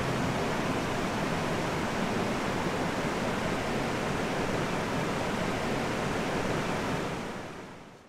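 A steady, even rushing noise with no pitch or rhythm, which fades out over the last second.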